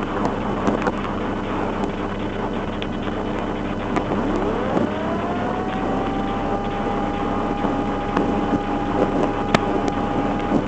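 Rain falling on a police patrol car, heard from inside, with small patters over a steady low hum. About four seconds in, a whine rises in pitch, levels off and holds steady until just before the end.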